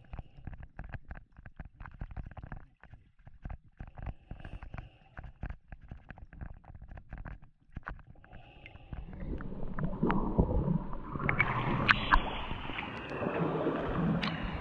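Underwater recording of a snorkeler swimming in a flooded cave: many small clicks and bubbling at first. About nine seconds in, the camera comes up through the surface and louder splashing and sloshing of water take over.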